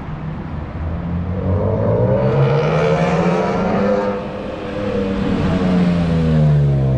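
BMW E46 M3's S54 straight-six driving up under throttle: the engine note climbs, eases off about four seconds in, then climbs again and is loudest just before it drops away near the end.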